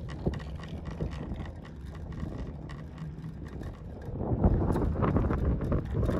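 Wind buffeting the microphone on a moving chairlift over a steady low rumble, with scattered light clicks; the wind grows louder about four seconds in.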